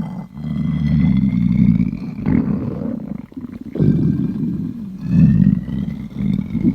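A hungry, empty stomach growling loudly: deep rumbling that comes in several surges, with thin squeaky tones gliding slowly upward over it.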